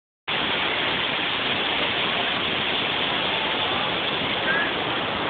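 Ocean surf washing up on a sandy beach: a steady, even rushing noise that starts abruptly just after the beginning.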